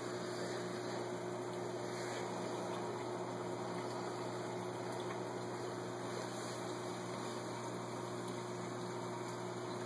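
Saltwater aquarium's pump and circulating water running steadily: an even water hiss over a constant low electrical hum.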